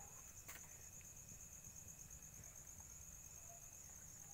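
Faint, steady, high-pitched insect trilling, cricket-like, pulsing evenly, with one faint click about half a second in.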